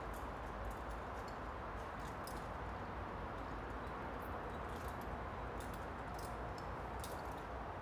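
Steady outdoor background noise with short, faint high-pitched sounds scattered throughout.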